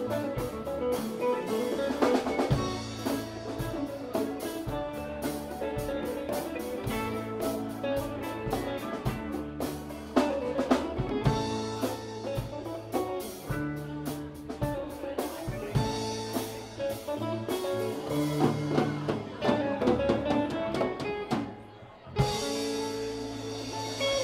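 A live rock band plays an instrumental passage with electric guitars, bass, drum kit and congas. Near the end the sound briefly drops away before the full band comes back in.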